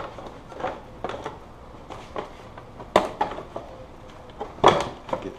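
Hard plastic motorcycle fairing pieces knocking and clattering as they are handled and fitted into place. There is a string of light clicks, with two louder knocks, one about three seconds in and one near the end.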